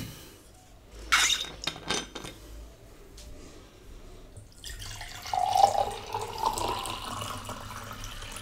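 A few short clicks, then water pouring from a bottle into a glass mug from about five seconds in, its pitch rising slightly as the mug fills.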